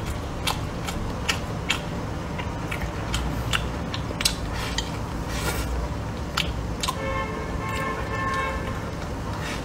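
Eating sounds: wooden chopsticks clicking against a ceramic plate of rice and stir-fry, with chewing, in many short, irregular clicks over a steady low hum.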